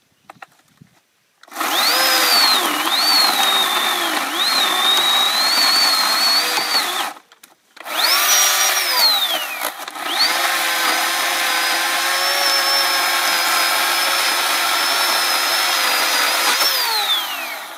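40-volt lithium-ion cordless electric chainsaw limbing a tree, its motor whining in three runs. The pitch dips and recovers as the chain bites into the wood, and falls away each time the trigger is let go, last near the end.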